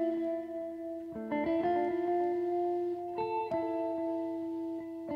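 Intro music: a guitar playing held chords that change every second or two.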